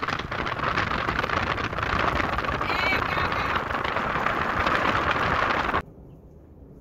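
Car driving on a gravel road, heard through an open window: wind rushing on the microphone and tyres crackling on gravel. The noise cuts off suddenly near the end.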